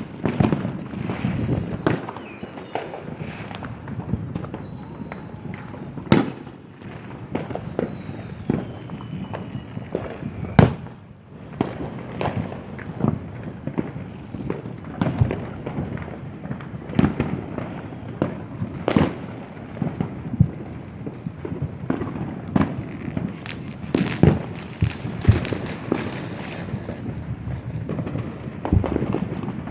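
Fireworks going off in a dense, continuous barrage of overlapping bangs and pops, with one especially sharp loud bang about ten seconds in. A few faint falling whistles come through in the first ten seconds.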